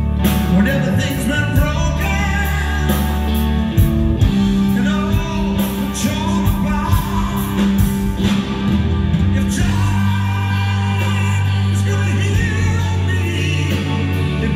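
Live rock band playing a song: long sustained bass notes, drums and electric guitar, with a voice singing over it.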